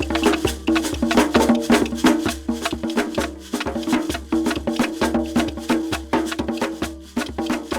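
Instrumental background music with a busy percussion pattern of sharp, rapid strikes over a held chord and a steady bass line.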